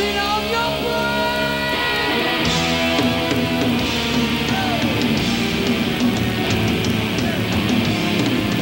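Heavy metal band playing live: distorted electric guitar, bass and drums, with long held notes in the first two seconds.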